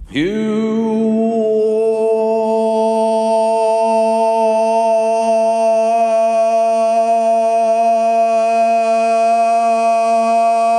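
A man throat singing one low droning note with strong overtones. The note slides up into pitch right at the start and is then held steady, without a break.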